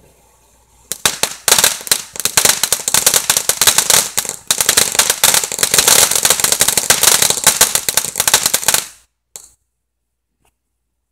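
Crackling fountain firework going off: a dense, rapid string of loud sharp pops and crackles that starts about a second in and stops abruptly about nine seconds in, leaving a couple of faint clicks.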